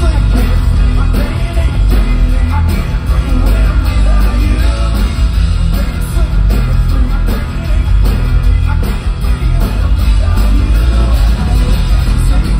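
Live rock band playing through a festival PA: guitars and drums with a singing voice, loud and bass-heavy as heard from the crowd.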